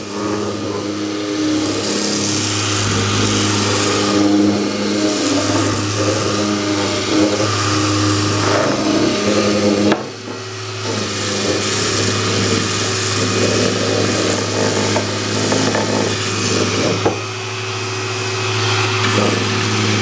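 Electric random orbital sander running against a wooden handle blank, its sanding hiss over the steady hum of the Festool dust extractor hooked to it. The sound breaks off briefly about halfway through, then resumes.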